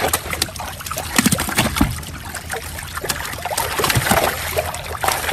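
Water splashing and trickling around a small boat, with irregular sharp splashes and knocks, as a net with fish is worked at the waterline.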